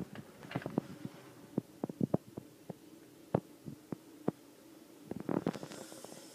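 Handling noise on a handheld phone's microphone: scattered clicks and soft knocks, with a short burst of rumbling thumps about five seconds in.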